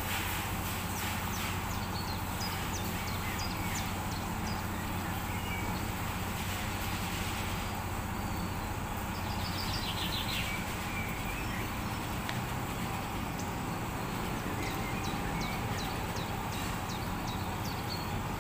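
Chicken pieces cooking in a stainless steel pot on a gas stove: a steady low rumble with scattered light ticks and a few short high chirps.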